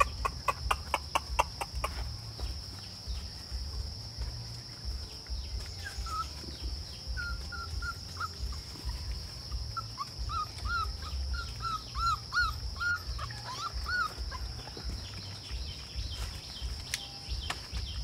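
A rapid run of clicking calls, like the 'choo choo' used to call puppies, for the first two seconds. Then a series of short high chirps comes about twice a second, over a steady drone of insects.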